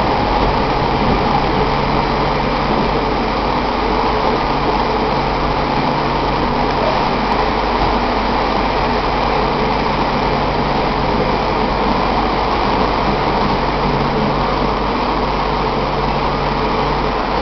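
London Underground Central line train running, heard from inside the carriage: a loud, steady roar of wheels and motors with a constant low hum underneath.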